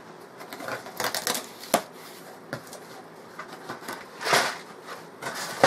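Cardboard shipping box being handled and torn open by hand: scattered taps and scrapes of cardboard, a longer rasp of tearing about four seconds in, and a sharp knock at the very end.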